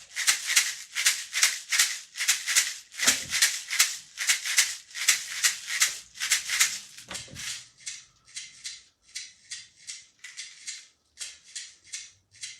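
Homemade shaker made from two tuna cans, shaken in a steady rhythm of about three strokes a second, growing softer and thinner about halfway through.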